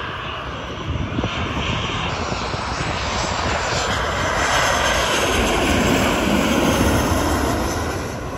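Jet airliner on its landing approach, gear down, passing low overhead: engine noise that grows steadily louder, is loudest in the second half and starts to fade near the end.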